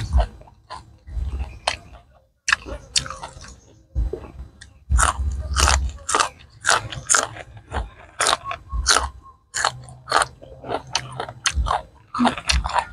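Close-miked crunching and chewing of crisp raw green vegetables: sharp, irregular bites and chews with short pauses, typical of a mukbang eating sound.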